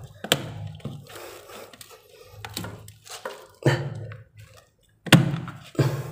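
Four dull thunks from a water pipe and its fitting being handled, the loudest about five seconds in, with quieter rustling between them.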